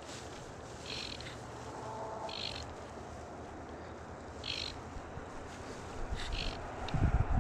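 Fly line stripped in by hand in short pulls, each a brief hiss, over the steady rush of the river. Low rumbling thumps on the microphone near the end.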